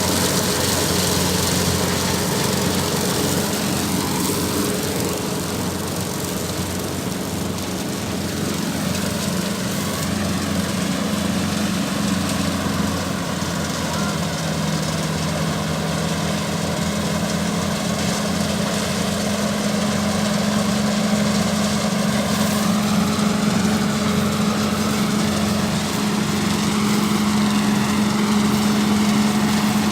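An engine running steadily, its pitch shifting slightly a few times.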